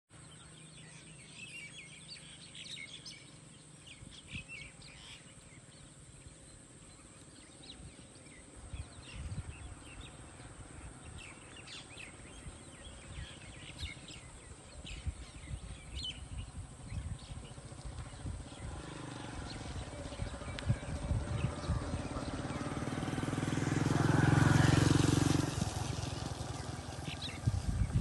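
Open-field ambience with scattered short bird chirps. From about two-thirds of the way in, a motor vehicle's engine swells up, loudest a few seconds before the end, then drops back.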